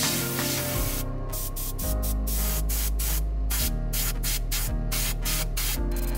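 Airbrush spraying paint onto a small diecast car body: a loud hiss, steady for about the first second and then in quick short bursts with brief gaps. Background music plays underneath.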